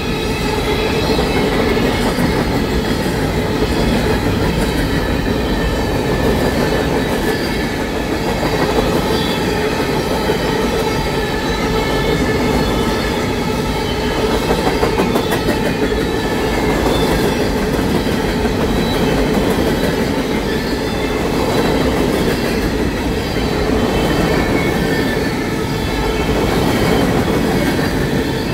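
Empty steel coal hopper cars rolling past at track speed: steel wheels clicking over the rail joints in a steady, loud run of rolling noise with no break.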